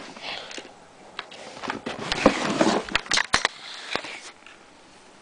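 Handling noise of an airsoft pistol and a screwdriver being moved about on carpet: rustling with a few sharp clicks, clustered between about two and four seconds in.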